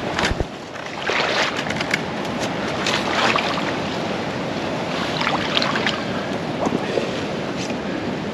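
Wading in shallow marsh water among dry cattails: water sloshing around the legs, and dry stalks rustling and crackling as they are pushed aside.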